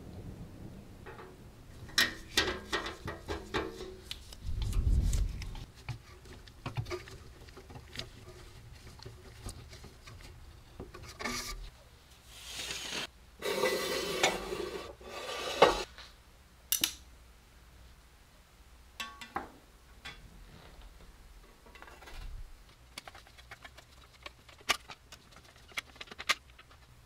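Sheet-metal parts and small hardware of a vintage popcorn maker being handled and refitted: clinks and taps, a low thump about five seconds in, and a longer scraping rub in the middle. Scattered clicks near the end come as screws are driven into the steel body with a screwdriver.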